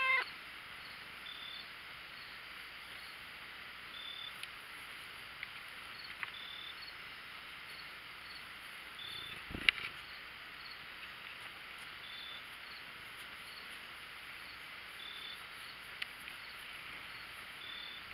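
Crickets chirring steadily in the grass, with a short high chirp every two to three seconds. A single sharp knock sounds about ten seconds in.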